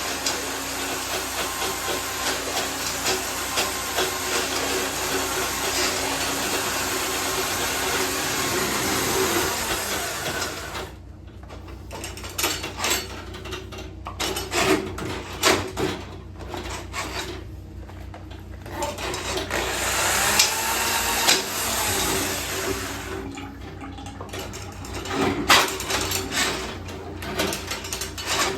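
Water rushing from a backed-up bathtub drain being cleared. The rush stops abruptly about eleven seconds in and returns briefly later, with scattered sharp knocks and clatter in between and near the end.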